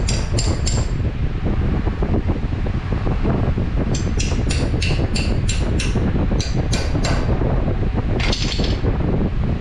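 Hammer blows on a front brake caliper, working at its stripped bleeder valve: sharp, ringing metal strikes in runs of about three a second, a few at the start, half a dozen about four seconds in, and a few more just after. A steady low rumble runs underneath.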